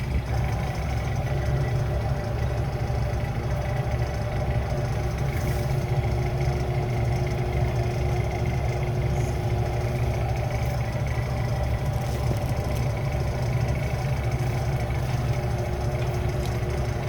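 Refrigeration unit of a vending machine running: a steady low hum with a few faint steady tones above it that holds unchanged throughout.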